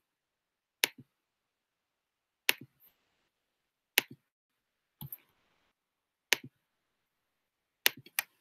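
Computer mouse button clicking, a sharp click every second or so, each followed at once by a softer release click, with two clicks in quick succession near the end.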